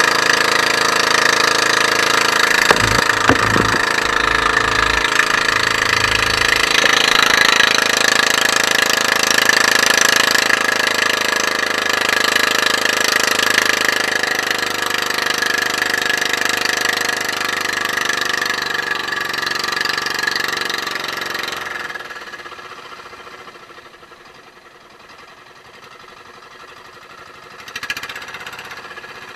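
Outrigger fishing boat's inboard engine running steadily under way. A few low thumps come about three seconds in, and the whole sound drops much quieter a little after twenty seconds.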